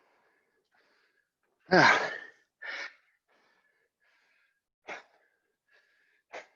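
A man breathing hard and out of breath from 100 burpees. About two seconds in comes one loud voiced gasp whose pitch falls, followed by three shorter sharp breaths and faint panting between them.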